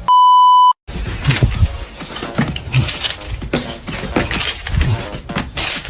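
A short, loud electronic beep that cuts off abruptly, then after a moment of silence a jumble of clicks, rustling and low thuds.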